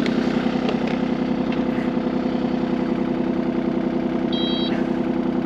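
Excavator's diesel engine idling steadily, with a few faint clicks and a short high electronic beep about four seconds in.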